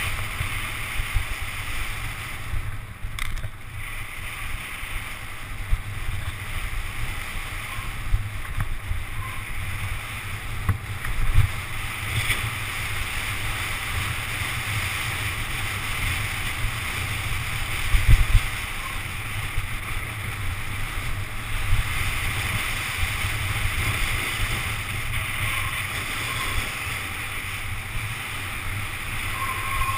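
Downhill mountain bike riding fast over a rough dirt trail, heard from a camera on the bike or rider: steady wind buffeting on the microphone with the rumble and rattle of the bike over bumps. There are harder jolts about eleven seconds in and again near eighteen seconds.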